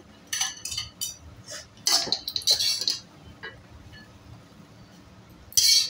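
Steel spoon scraping and clinking against a metal kadhai as cooked poha is scooped out: a run of short scrapes in the first three seconds, a quiet stretch, then one louder scrape near the end.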